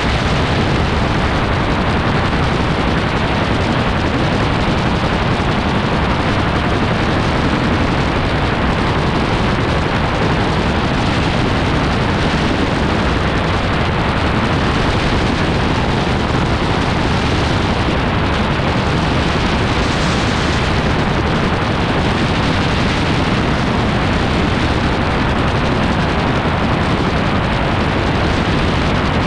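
Loud, steady wind rush buffeting the microphone over the engine of an open-cockpit autogyro in flight.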